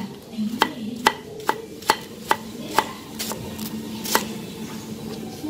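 Kitchen knife slicing a fresh forest bamboo shoot into rings on a round wooden chopping board. Each cut ends in a sharp knock of the blade on the wood, about two a second, stopping about four seconds in.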